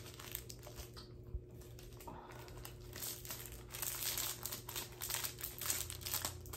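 Packaging crinkling and rustling in irregular bursts as items are handled and rummaged through a gift box, busiest in the second half.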